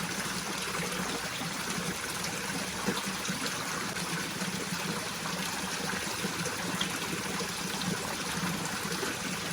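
Steady rushing of water, an even unbroken wash of noise with a faint low hum beneath it.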